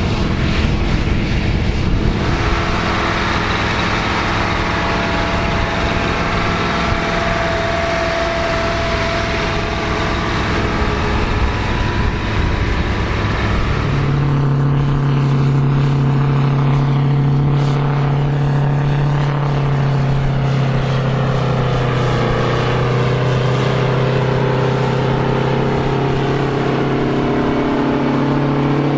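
Big farm tractor engines running steadily under load while pulling plows. About halfway through, the sound changes abruptly to another engine with a stronger, steady low note.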